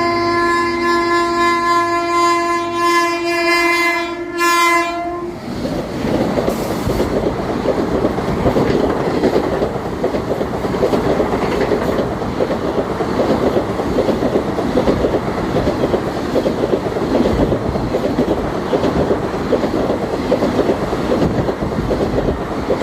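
Indian Railways WAP7 electric locomotive's horn sounding for about five seconds, with a brief break near the end of the blast. Then comes the loud, steady rumble of the train running on the track.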